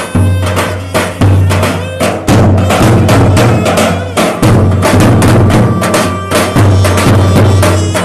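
Turkish folk dance music from a davul-zurna band: two large davul bass drums beaten with mallet and thin stick in a steady driving rhythm under a zurna playing a held, wavering melody. It is loud throughout.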